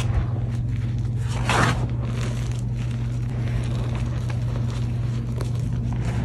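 Hands crushing and pushing through reformed gym chalk powder and chunks: soft crumbling and crackling, with a louder crunchy rush about a second and a half in. A steady low hum runs underneath.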